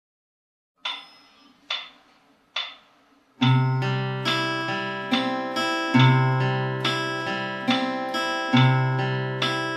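Three short, evenly spaced clicks, then a steel-string acoustic guitar fingerpicking a broken-chord pattern in triple time from about three and a half seconds in: a low bass note starts each cycle, about every two and a half seconds, with plucked treble notes ringing in between.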